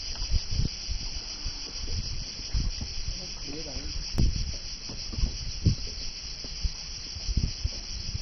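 Steady, high-pitched buzzing of cicadas from the cliffs. Irregular low knocks and rumbles run underneath.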